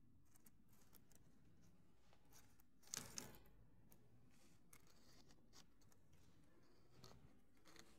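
Faint crinkling and rustling of thin plastic grow bags being handled, with one brief louder crackle about three seconds in.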